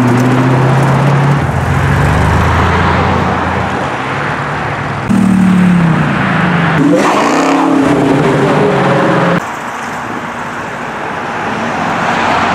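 Cars driving slowly past, one after another in three cut shots. First a silver Maserati coupé's V8 runs steadily. From about five seconds in, a classic Jaguar XK150 roadster's straight-six drops in pitch and then revs up. Near the end, a red C7 Corvette Stingray's V8 runs more quietly and swells as it pulls away.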